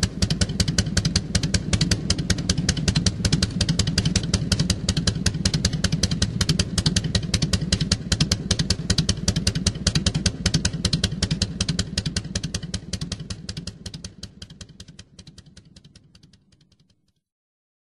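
A motorcycle engine running with a fast, even pulsing beat, fading away over the last few seconds.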